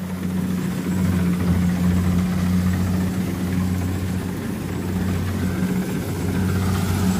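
A small engine running steadily at an even speed, a constant low hum.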